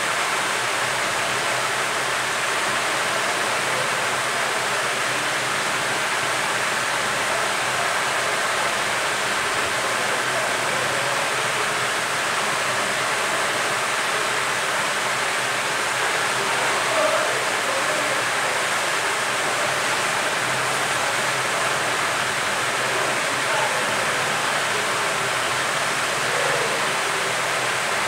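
Hot-air rework station blowing steadily: a constant airy hiss from the handpiece as it heats the metal shield on a phone motherboard to desolder it.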